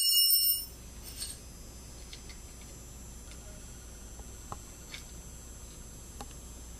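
A sharp metallic clink that rings briefly at the start, then scattered faint clicks and taps of hand tools on metal.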